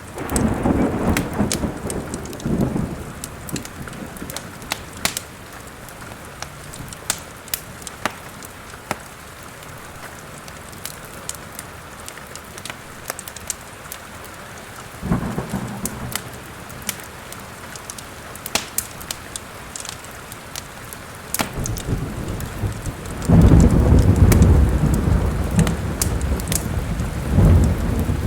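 Steady rain with thunder: a rumble right at the start, a shorter one about halfway through, and a longer, louder one that builds about three-quarters of the way in. Sharp crackles and pops of a wood fire in a fireplace run throughout.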